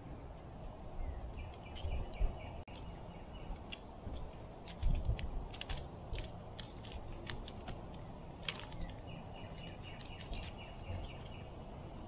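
Scattered sharp clicks and light knocks as a bass is unhooked by hand in a kayak, over a low rumble of handling noise. A bird trills twice, once near the start and again about two-thirds through.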